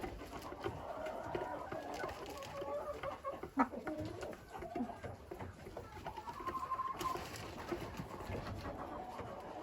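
Chickens clucking, with many short calls overlapping and one longer held note about six and a half seconds in.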